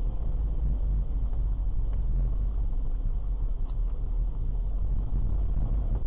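Steady low rumble of a car driving, its engine and tyres on the road heard from inside the cabin through a dashcam's microphone.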